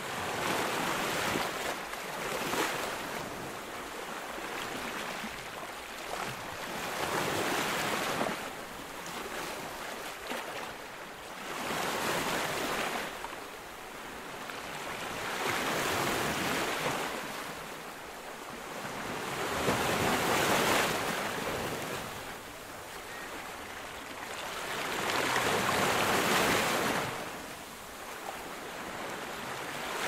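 Surf breaking on a sandy beach: waves crash and wash up the sand one after another, the rushing swelling with each breaker and falling back between them, about every four to five seconds.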